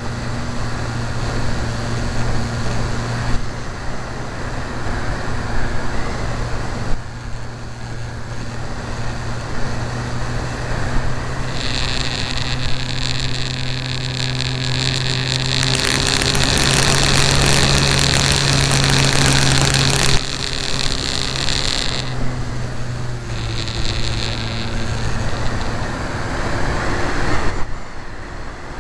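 Radio-controlled model aircraft flying overhead: a steady motor drone with a high whine that comes in near the middle and swells loudest for a few seconds as the aircraft passes close, then fades back.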